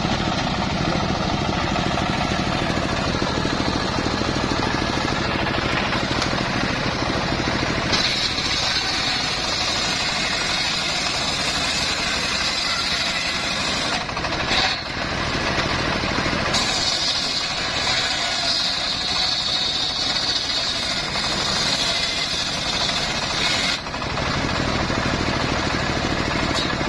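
Homemade engine-driven circular saw bench ripping sengon (albasia) wood into boards: the engine runs steadily throughout, and a high cutting whine from the blade rises over it twice, for about six and seven seconds, with a short break between the cuts.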